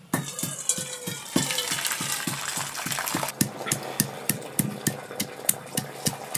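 Liquid squeezed from a cloth trickling into a steel bowl, then, about halfway through, a stone pestle pounding garlic cloves on a flat grinding stone in steady strokes, about four a second.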